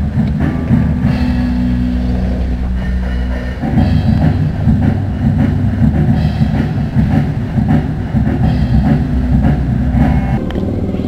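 Bass-heavy music with a drum beat, most of the sound in the low end and little treble.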